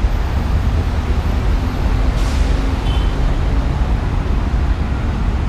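Steady street traffic on a busy avenue: a continuous low rumble of car engines and tyres, with a brief hiss about two seconds in.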